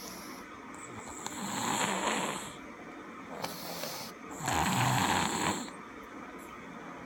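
A sleeping man snoring: two loud snores, each about a second long and about three seconds apart, with a fainter breath between them.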